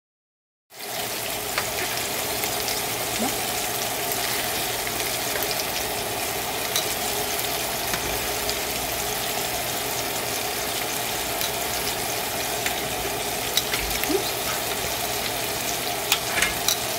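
Meatballs frying in oil in a non-stick pan, a steady sizzle that starts suddenly about a second in. Scattered light clicks and taps, more of them near the end, come as the meatballs are turned in the pan.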